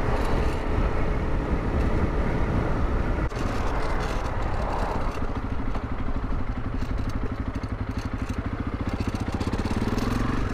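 Honda CRF300 Rally's single-cylinder engine running under a steady low rumble while being ridden, its revs rising near the end.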